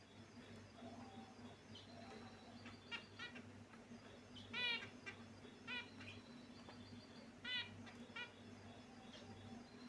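Caged finches calling: a few short chirping calls, the loudest about halfway through, among fainter high chirps, over a steady low hum.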